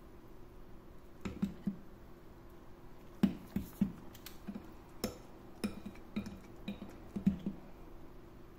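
Metal wire whisk knocking and clinking irregularly against the side of a glass mixing bowl as it stirs and lifts thick cake batter.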